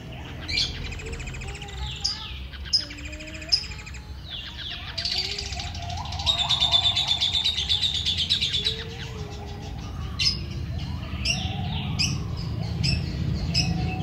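Society finches chirping in short sharp notes, with a dense, fast buzzy trill from about five to nine seconds in. A steady low rumble runs underneath.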